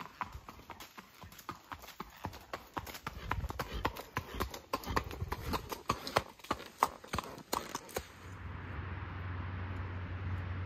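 Missouri Fox Trotter gelding's hooves striking a leaf-covered dirt trail in a quick, even gaited rhythm under a rider, getting louder as the horse comes closer. About eight seconds in the hoofbeats stop and a steady low hum and hiss takes over.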